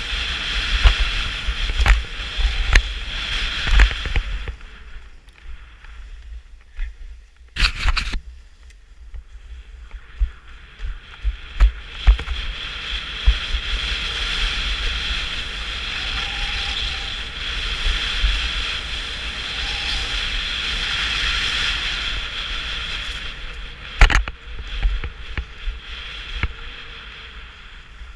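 Skis sliding and carving on groomed snow: a steady scraping hiss that dies down for several seconds and then builds again, over a low rumble, with two sharp knocks, one about a third of the way through and one near the end.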